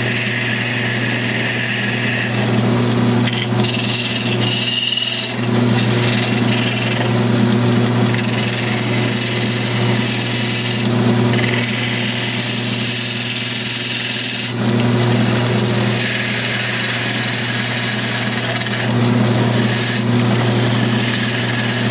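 Wood lathe running steadily with its motor hum while a detail gouge cuts the spinning wooden duck-call blank. The cutting comes in several passes, a hiss of shavings that starts and stops every few seconds.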